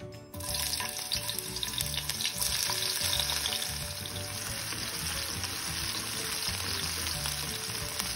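Sliced onion dropped into hot oil in a wok, breaking into a sudden sizzle a moment in, then frying steadily while it is stirred with a spatula.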